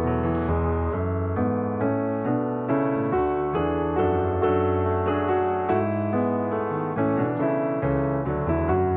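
Background instrumental music led by piano, a steady flow of notes over a sustained bass.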